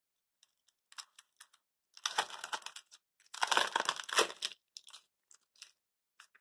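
Clear plastic cellophane packaging crinkling and rustling in the hands, with paper sheets sliding against it, in a few bursts: the two longest about two and three and a half seconds in.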